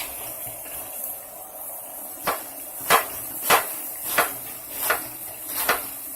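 Kitchen knife chopping through a cabbage onto a cutting board: about six separate knocks at an uneven pace, starting about two seconds in.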